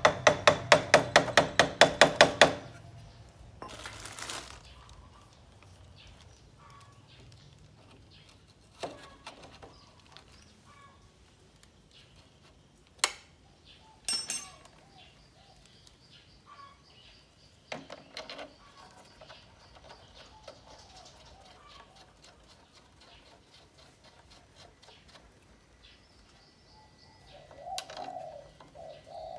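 A fast run of evenly spaced clicks for about the first two and a half seconds, then scattered sharp knocks and clicks as new front fork tubes are handled and slid into the fork clamps of a Honda Super Dream motorcycle. A pigeon coos near the end.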